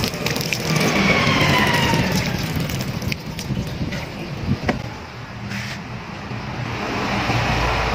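Water from a hose splashing onto coconut coir in a plastic grow bag, fading out in the first second or two. A passing motor vehicle's engine can be heard under it, its pitch falling, along with a few sharp clicks and a low rumble.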